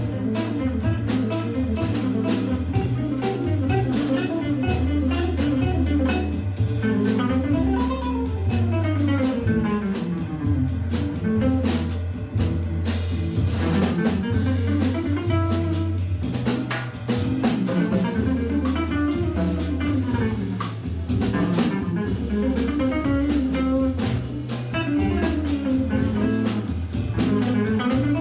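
Jazz organ trio playing: Hammond B3 organ, guitar and drum kit. A steady low bass line runs under fast rising and falling melodic runs, with cymbals and drums keeping time.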